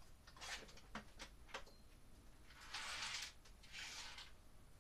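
Handling noises from work overhead: a few light clicks and knocks, then two brief rustling or scraping sounds.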